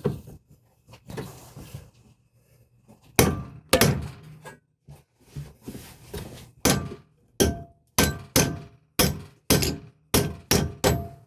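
Hammer blows knocking the press-fit inner CV joint off an Audi A4 front drive shaft held in a vise. After a few seconds of quieter handling, sharp metallic strikes come about twice a second, each with a short ring.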